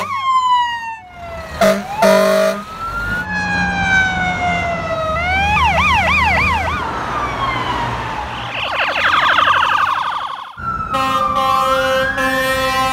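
Fire trucks running with sirens, in a quick run of short cuts: wailing sirens sweeping up and down, a fast zigzagging yelp in the middle, and steady blasts of an air horn near the start and end. A siren's pitch rises slowly near the end.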